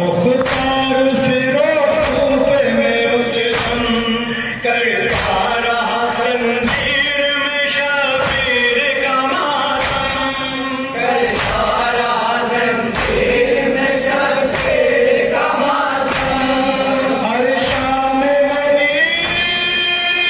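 Urdu noha lament sung by a male lead reciter through a microphone, with a group of men's voices chanting along. Steady chest-beating (matam) keeps time under it as sharp slaps, about three every two seconds.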